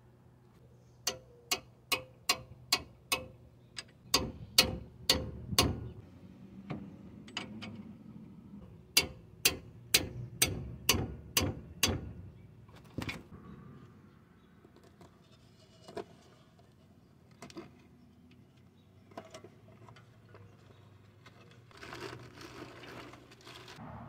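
Hand ratchet with a socket clicking as a bolt on the back of the front wheel-hub knuckle is turned: two runs of sharp clicks at about two to three a second, then a few faint scattered clinks of tool handling.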